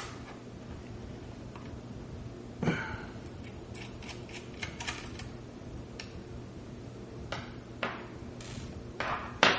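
Light scattered clicks and ticks of a small precision screwdriver working tiny screws out of a graphics card's side bracket, with small metal screws set down on a wooden table, the loudest click near the end. A low steady hum runs underneath.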